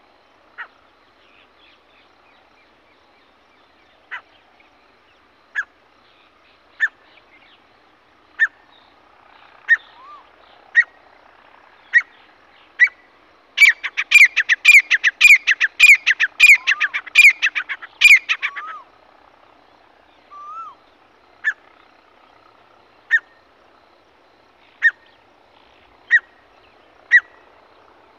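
Grey francolin calling: sharp single call notes every second or so, then about halfway through a fast run of loud repeated calls, about three a second for some five seconds, before it goes back to single notes.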